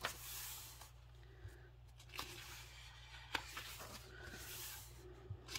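Paper pages of a coloring book being turned by hand: soft rustling swishes with a few light clicks.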